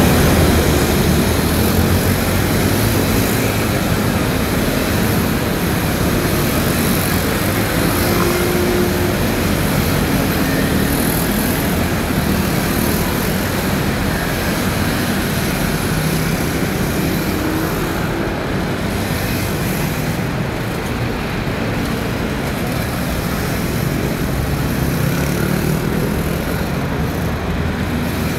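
A dense, continuous drone of many scooter engines as a large pack pulls away and streams past. The noise eases somewhat in the last third as the pack thins out.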